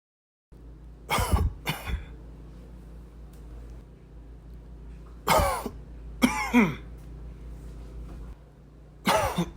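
A person trying to hold in a cough: short, strained coughs that break out in three bouts, the first two with two coughs each and one more near the end, each with a falling pitched vocal edge. A steady low hum runs underneath.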